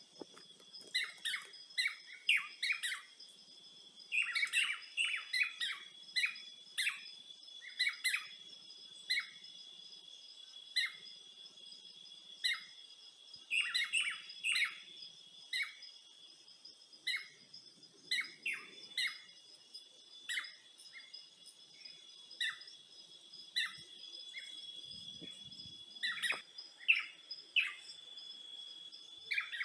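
Birds chirping in many short, quick calls, sometimes in rapid clusters, over a steady high-pitched hum.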